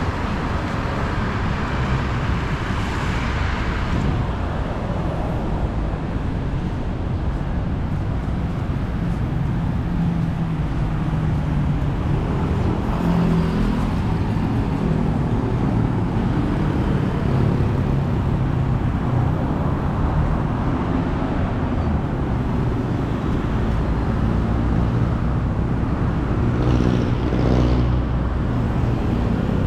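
Steady road and traffic noise with a motor vehicle's engine running; its low engine hum stands out more from about ten seconds in.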